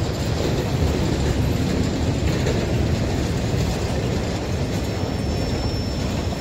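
Freight train boxcars rolling past on the track: a steady low rumble of steel wheels on rail.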